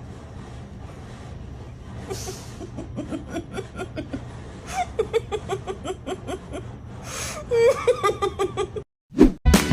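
A person laughing in quick, repeated bursts over a steady low hum. The laughing grows louder a few seconds in, and cuts off abruptly near the end.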